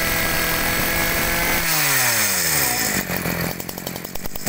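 Robin EC020G 20cc two-stroke brush-cutter engine running at high revs. A little under two seconds in the throttle is let off, and the engine winds down over about a second to a steady idle.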